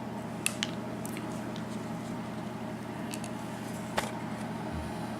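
Steady low room hum with a few faint, light clicks: one pair about half a second in and one just before four seconds.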